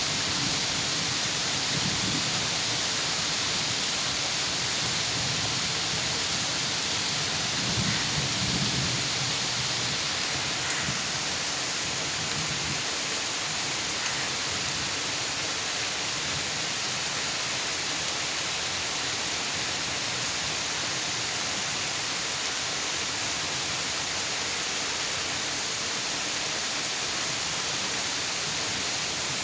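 Steady heavy rain hissing down, with low rolls of thunder near the start and again about eight seconds in, after which only the rain goes on.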